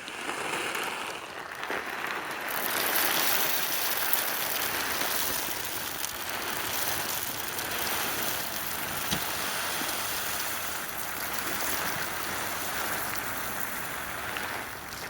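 Birdseed being poured into a bird feeder: a steady, rain-like hiss of pouring seed that grows brighter about two seconds in.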